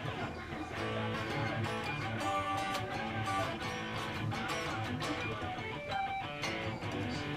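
Guitar music: plucked and strummed notes played steadily.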